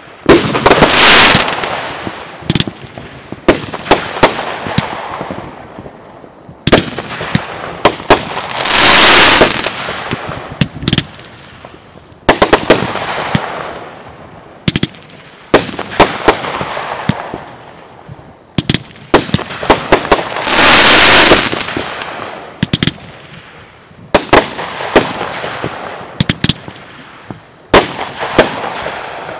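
Fireworks firing continuously: multi-shot cakes giving rapid runs of sharp shots and bangs, broken by several swells of hiss lasting a second or two.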